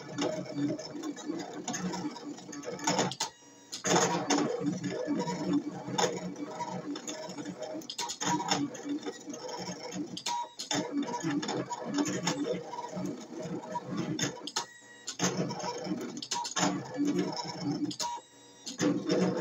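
Brother ScanNCut cutting machine at work, its stepper motors whirring in changing tones as the blade carriage and mat move to cut a stencil. The whirring runs in stretches of several seconds, broken three times by brief pauses.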